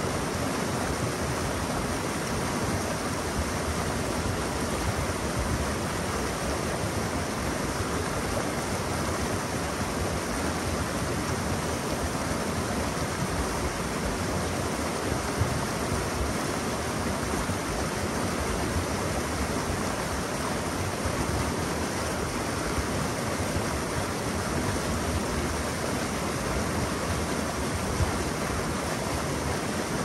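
Mountain river water rushing steadily: a dense, even noise with no breaks.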